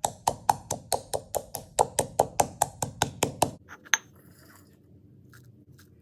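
A knife chopping rapidly on a cutting board, about five strokes a second for three and a half seconds, then two last strokes.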